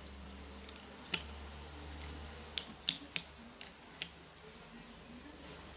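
Scattered sharp plastic clicks of a 3x3 puzzle cube's pieces being turned and fitted by hand, with a quick group of three a little before the middle, over a faint low hum.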